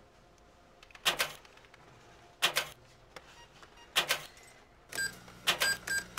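Handheld packing-tape gun screeching as tape is pulled across a cardboard box, three strokes about a second and a half apart. Near the end come several short electronic beeps.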